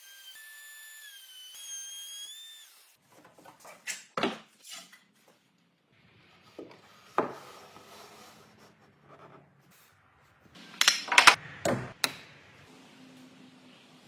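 A small power tool's motor whines at a high pitch that shifts slightly for about the first three seconds and then stops. After that, pieces of wood are handled, with irregular knocks, taps and rubbing, and a burst of louder knocks about eleven seconds in.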